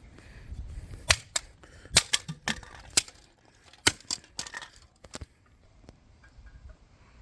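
A quick, irregular run of sharp cracks and knocks, about a dozen in the first five seconds, as plastic device casings are smashed and broken apart.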